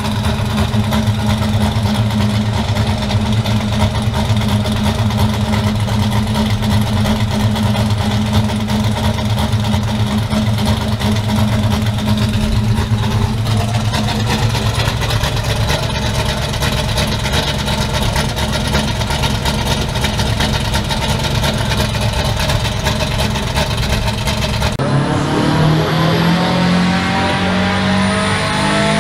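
A car engine running loudly and steadily. After a cut about 25 seconds in, an engine note rises steadily in pitch as a car accelerates.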